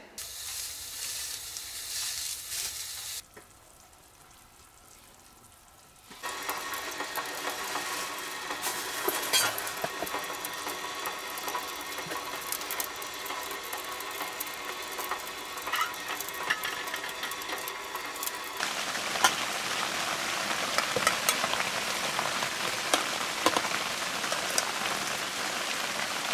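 Goose hearts frying in rendered goose fat in a mess-tin pot on a camp stove: a steady sizzle with scattered crackles and pops. Near the end it turns into a louder, denser hiss.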